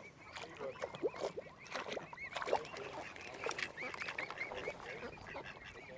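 Waterfowl calling together: a busy mix of many short, high peeping calls over lower honking and quacking calls.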